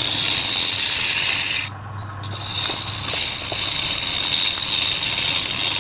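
Hand-held turning chisel cutting into a spinning wooden blank on a lathe: a steady scraping hiss over the lathe's low hum. The cutting drops away briefly about two seconds in, then resumes.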